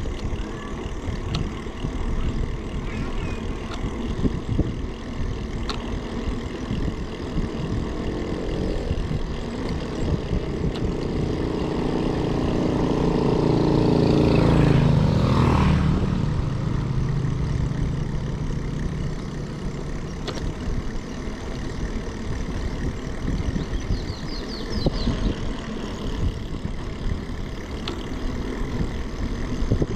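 Wind rushing over the microphone of a moving bicycle. About halfway through, a small motorcycle approaches and passes, its engine swelling to the loudest point and then dropping in pitch as it goes by.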